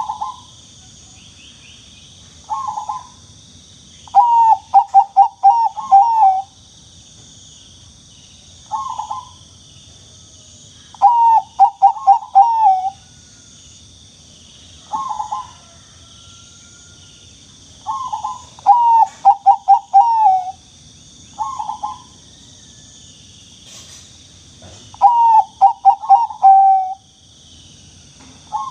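Zebra dove (Bangkok perkutut) cooing: phrases of a short note or a quick run of four or five rolling coos ending on a longer note, repeated every few seconds. A steady high hiss runs underneath.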